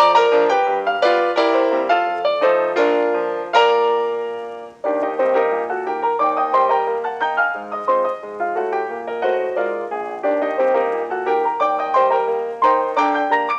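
Solo piano music, gentle notes and chords ringing and decaying; it thins out and almost stops about four to five seconds in, then starts again.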